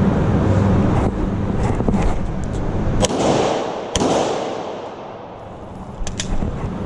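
Two handgun shots about a second apart, each sharp crack followed by a trailing echo, over steady background noise. A few small clicks follow about six seconds in.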